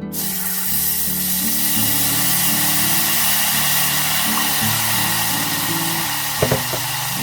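Food sizzling steadily in a hot pan, starting suddenly, with two short knocks near the end, under acoustic guitar music.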